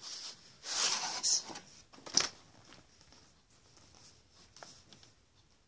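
A shrink-wrapped DVD box set being handled, its plastic wrap rustling and crinkling for about a second, then a single sharp click or tap about two seconds in, followed by faint scraping.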